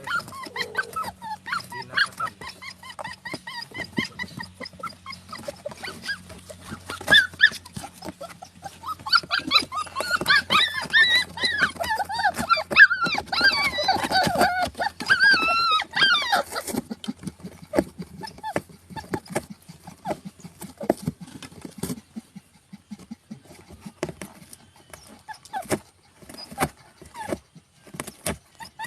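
A dog vocalising, with a stretch of high, wavering cries in the middle, among many short clicks and taps.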